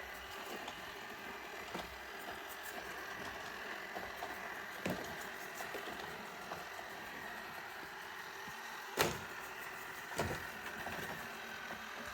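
Roomba robot vacuum running: a steady whirring hum with a thin high whine, broken by a few sharp knocks, the loudest about nine seconds in.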